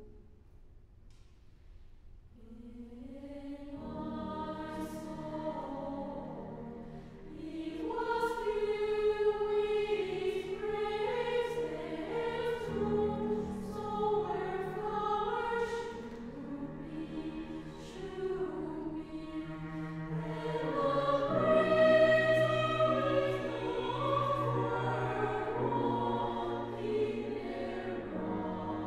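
Women's choir singing a slow, sustained choral piece with cello and piano accompaniment. It starts almost silent, the voices enter softly a couple of seconds in and swell, and it is loudest a little past the middle.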